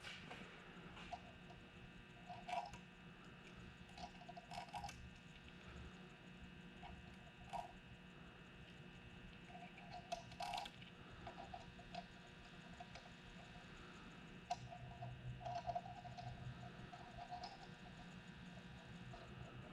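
Faint, scattered clicks, clinks and light knocks of hand tools and metal parts while main bearing caps are taken off an engine block, over a steady background hum.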